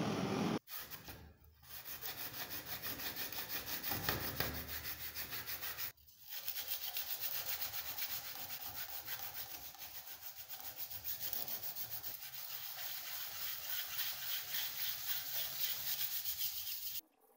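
A gas torch's flame hisses for under a second, then cuts off. A rusty flat steel blade is then rubbed back and forth by hand on a flat plate, a steady run of rapid sanding strokes that breaks off briefly about six seconds in.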